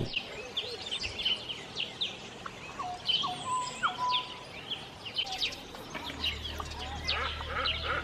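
Wild birds calling and chirping together, many short high chirps overlapping, with a few clear whistled notes about three seconds in and a run of evenly repeated notes near the end. A low steady hum joins about six seconds in.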